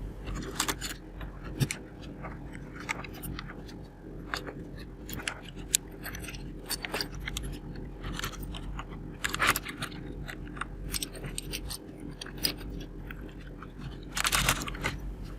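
Irregular plastic clicks and clatter as PBT keycaps are picked up and pressed back onto the switches of an Akko 3108 mechanical keyboard, with a short denser burst of clatter near the end.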